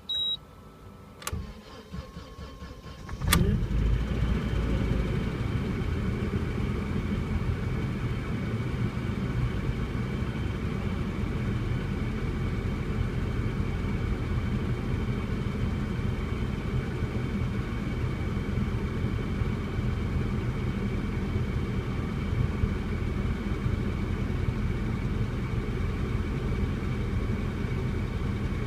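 Car engine cold-started after standing a day in frost, on a freshly replaced timing chain: after a click and a short steady tone, it fires about three seconds in and settles straight into a steady idle without the revs hunting.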